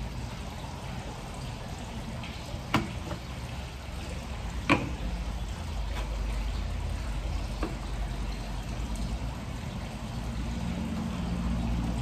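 Three sharp clicks, about three, five and seven and a half seconds in, the middle one the loudest, as small parts of a video doorbell are handled and fitted at a door frame, over a steady low background rumble.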